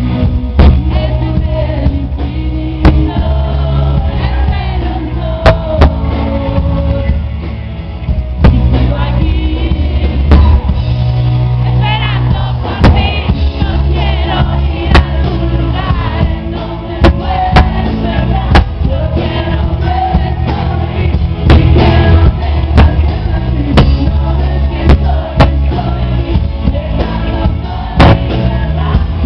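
Live rock band playing loud: a singer's vocals over bass guitar, electric guitar and drums, with regular drum and cymbal hits.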